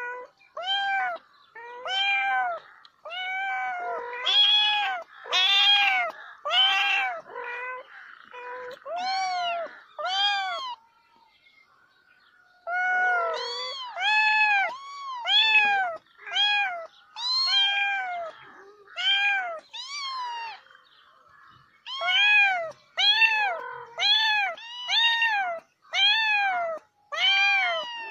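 A cat meowing over and over, about one short rising-and-falling meow a second, with a pause of about two seconds near the middle.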